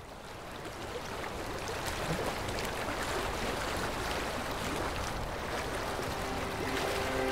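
Rushing, splashing water with small droplet ticks, fading in and growing louder over the first couple of seconds, then holding steady. Steady music tones begin to enter near the end.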